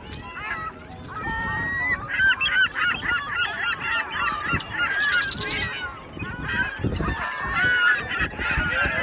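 A flock of birds calling noisily, many overlapping calls at once.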